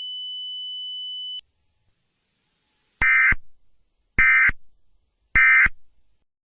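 Emergency Alert System end-of-message signal: three short, harsh digital data bursts (the SAME "NNNN" code), about a second apart. They are preceded by a steady high tone that cuts off about a second and a half in.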